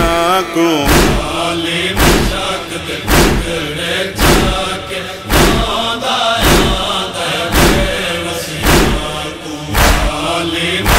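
Noha lament chanted by male voices, with rhythmic matam chest-beating slaps landing about once a second, the beats the loudest thing heard.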